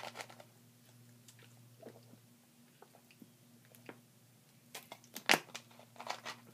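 Mouth and swallowing noises of someone drinking a smoothie from a plastic bottle, with small clicks of the bottle being handled. A short cluster of sharper, louder mouth sounds comes about five seconds in.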